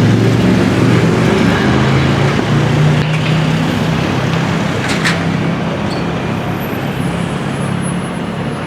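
Engine of a large road vehicle running with a low, steady drone that slowly fades, over busy street traffic noise. A sharp click about five seconds in.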